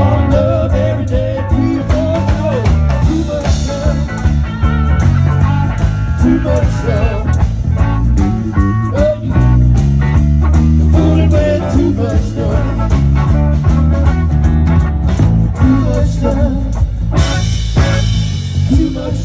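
A live blues-rock band playing an instrumental passage: an electric guitar lead with bent notes over bass guitar and drums. The cymbals get brighter near the end.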